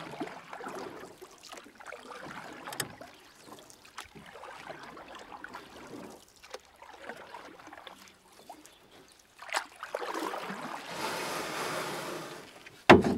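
Kayak paddle strokes splashing and dripping in the water, in irregular swells with small clicks. A single sharp knock near the end is the loudest sound.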